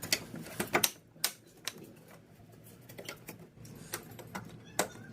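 Irregular sharp clicks and light taps, about a dozen spread unevenly, from tool and parts handling while the grille bolt is fastened.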